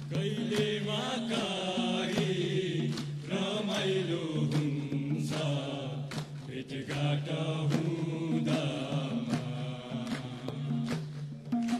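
A group of men chanting a Deusi song together, with hand claps keeping an uneven beat.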